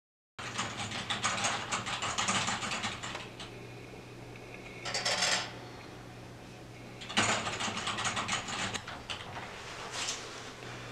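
Rapid mechanical clicking and rattling in several bursts, over a steady low hum.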